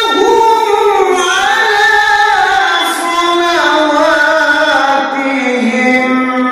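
Music: a single voice singing long held notes that slide from one pitch to the next.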